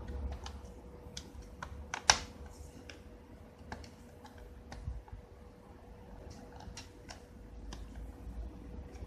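Scattered light clicks and taps from handling the plastic case of an HP Mini 210 netbook during disassembly, with one sharp click about two seconds in. A faint steady hum runs underneath.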